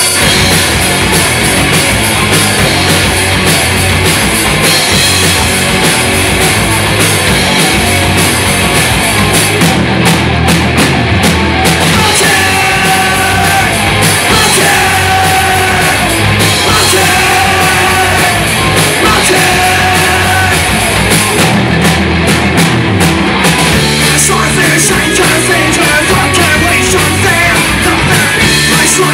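Punk rock band playing loud and continuous, with a singer yelling over it.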